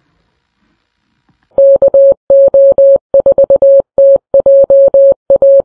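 Morse code: a single steady beep tone keyed on and off in short and long elements, starting about a second and a half in, sending an amateur-radio sign-off.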